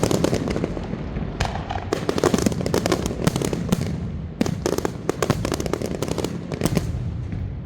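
Fireworks going off in rapid, dense flurries of crackling bangs, a few louder reports among them, dying away near the end.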